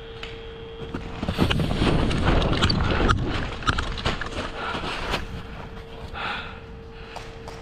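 Footsteps and rustling, rattling gear of an airsoft player on the move, with irregular sharp knocks for about four seconds starting just over a second in, then easing off.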